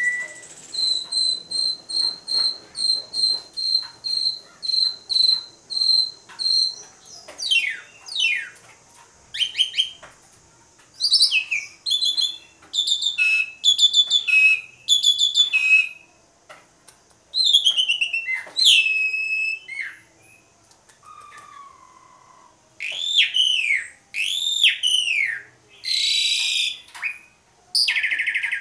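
Asian pied starling (jalak suren) singing a loud, varied song: a run of clear whistled notes repeated about twice a second, then steep downward-slurred whistles, fast chattering phrases, arched whistles and a buzzy note near the end.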